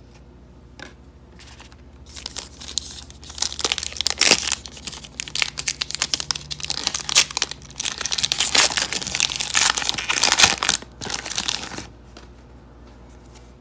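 A foil trading-card pack being torn open and its wrapper crinkled by hand, a dense crackling that starts about two seconds in and stops near the end.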